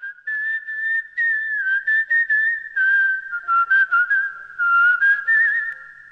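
A person whistling a wavering melody: one long held line of notes that steps and glides in pitch, with breathy air noise between phrases, fading out near the end.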